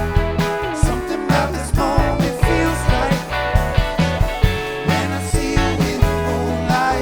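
A live band playing a funky, soulful rock groove with a strong bassline, electric guitar lines and a steady drum beat, in a passage with no sung words.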